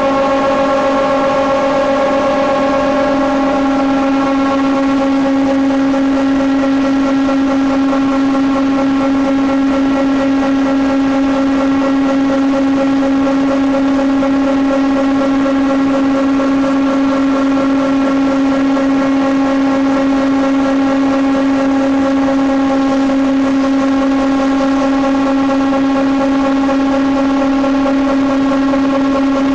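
Four-sided timber-profiling moulder running steadily, giving an even whine that holds one pitch throughout.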